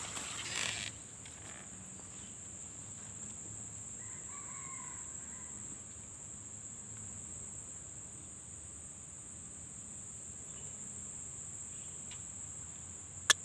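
Steady high-pitched chorus of crickets, with a rooster crowing faintly about four seconds in and a single sharp click near the end.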